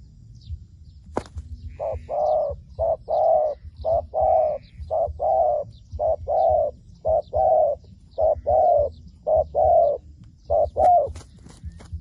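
Zebra dove cooing: a long run of short, quick coos in pairs and small groups, starting about two seconds in and lasting around nine seconds. Faint high chirps sound throughout, and a few sharp clicks come near the end.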